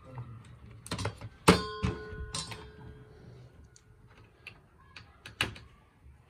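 Clicks and knocks of parts and tools being handled as the induction cooktop is fitted back together, with one sharp metallic clink about a second and a half in that rings on briefly.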